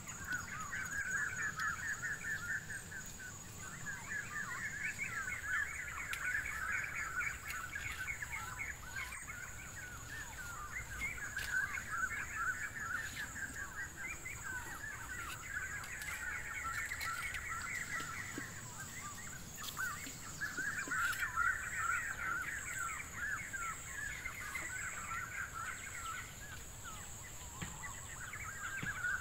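Forest birds chattering in bouts of rapid, quick chirps lasting a few seconds each, with short pauses between, over a steady high-pitched whine.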